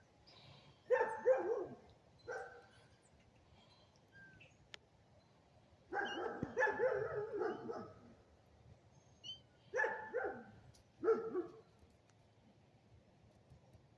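Animal calls in five short bouts, each a pitched cry that falls away at the end. The middle bout is the longest, about two seconds of several calls run together.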